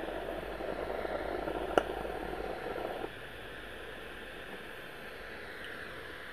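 Steady hiss from a gas-fired Roundhouse Karen live-steam locomotive that cuts off abruptly about three seconds in, with one sharp click a little before two seconds.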